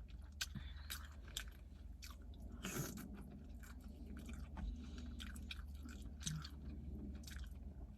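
A person chewing seafood boil close to the microphone, with many short wet clicks and small bites scattered through.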